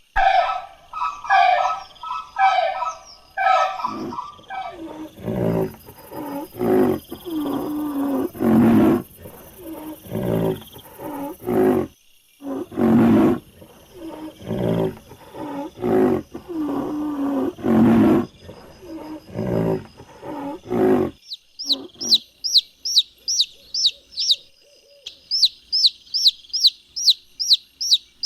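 A run of animal calls. First come a few seconds of quick, higher repeated calls. Then a long series of deep, rough calls follows, about one a second. From about 21 seconds in, a bird takes over with rapid, high chirps, each a quick downward sweep.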